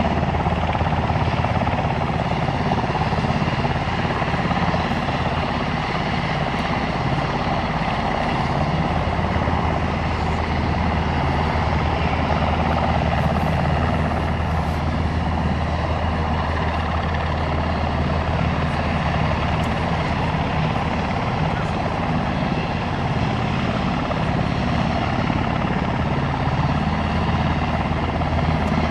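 Steady low engine drone with a crowd murmuring.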